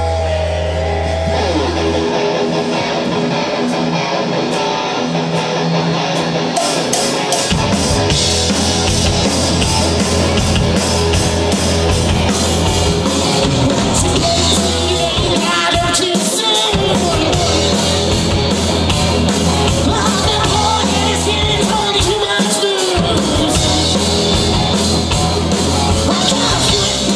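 Live hard rock band playing: electric guitars and bass over a held low note at first, then the full band with drum kit and cymbals comes in about seven seconds in and plays on loudly.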